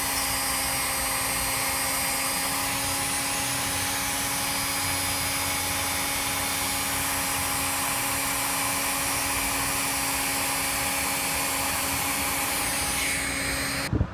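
Dremel rotary tool running at a steady high speed, its bit grinding down the edge of a clear plastic GoPro case. It stops abruptly near the end with a sharp knock.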